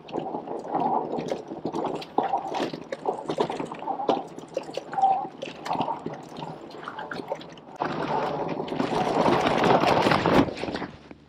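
HAOQI Cheetah full-suspension e-bike riding fast over a dirt mountain-bike trail: tyre noise with steady clicks and rattles from the bike. The rush grows louder and thicker about eight seconds in, then drops away suddenly near the end.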